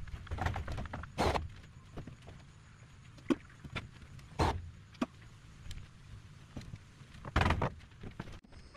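Irregular wooden knocks and short scrapes of timber being handled and fitted while building a wooden shed wall, with three louder bangs: about a second in, midway, and near the end.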